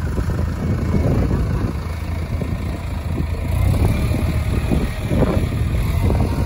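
Case IH tractor's diesel engine running steadily as the front-loader tractor reverses away from a round hay bale it has just set down.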